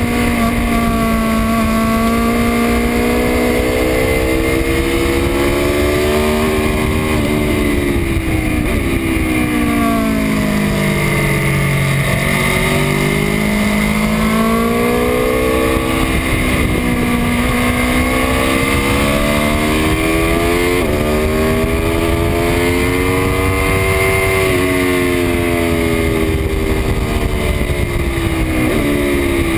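2018 Aprilia Tuono V4 1100 RR's V4 engine at racing speed, the pitch climbing through the gears with short drops at each upshift, then sweeping down under braking about a third of the way in and rising again as it pulls out of the corner. A rushing wind noise runs underneath.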